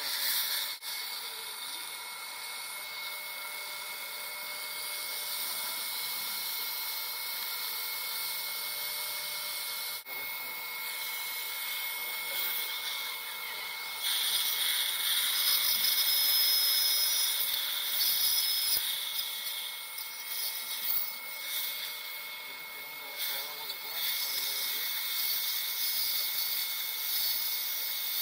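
Dental surgical suction tip hissing as it draws air and fluid from the mouth, with a faint steady whine beneath. It grows louder for several seconds about halfway in.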